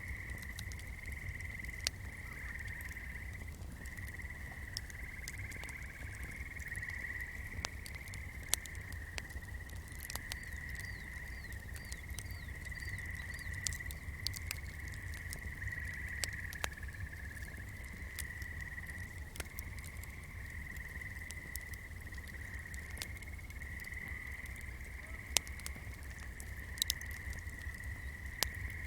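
Swamp night ambience: a continuous high trilling chorus of frogs, with scattered sharp crackles from a burning candle and a low steady rumble underneath.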